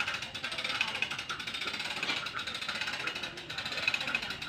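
Hand-operated hoist ratcheting with rapid, even pawl clicks as it slowly lifts a steel roof truss.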